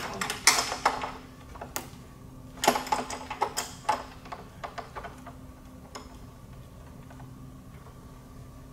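Small metallic clicks and knocks of a nut being tightened on a wire tensioner's shaft to set its drag. The clicks come mostly in the first four seconds, the strongest near the start and around three seconds in, then give way to a faint steady hum.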